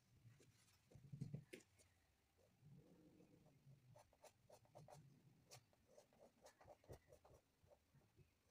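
Faint paintbrush strokes and dabs on a painted board: a scattering of soft taps and scratches in near silence.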